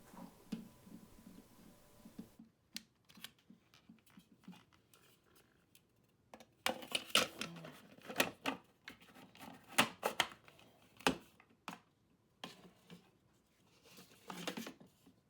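Hard plastic toy droid parts being handled, giving scattered clicks, taps and short scraping rustles, with a few louder bunches of clicks partway through.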